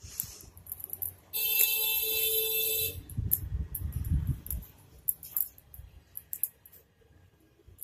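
A steady, buzzer-like electronic tone sounds once for about a second and a half, starting about a second in. Scattered light clicks and handling rustle come before and after it.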